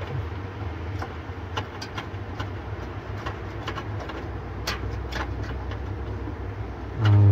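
Scattered light metallic clicks and taps of hands handling a refrigerator's aluminium evaporator fins and defrost heater, over a steady low engine-like hum. Near the end, a louder short vocal sound.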